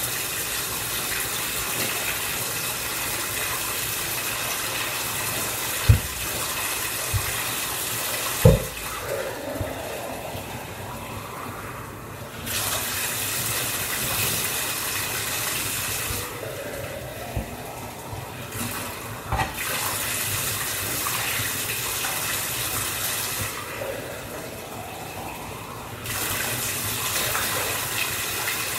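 Bathtub tap running while a metal cup is filled and its water poured over a puppy to rinse out conditioner. The rushing sound drops away and comes back several times, with a few sharp knocks.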